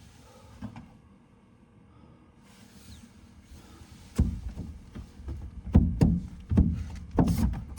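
A quiet start, then from about four seconds in a run of knocks and thumps, as a truck-bed camper's sliding window that was frozen shut is worked and forced open.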